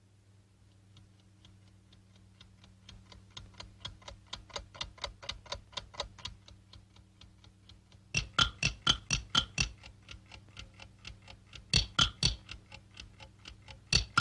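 Wind-up alarm clock ticking at about four ticks a second, rendered as a cartoon sound effect. The ticking grows steadily louder, then turns suddenly much louder and sharper about eight seconds in, and a few very loud ticks come again near the end.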